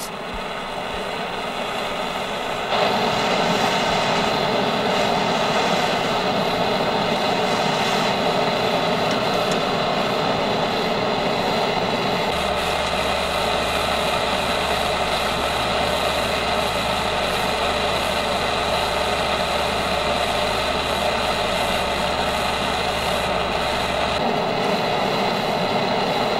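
Steady mechanical drone of a running machine, a hum made of several fixed tones over a noisy haze; it gets louder about three seconds in, and a deeper low hum joins about halfway through and cuts off shortly before the end.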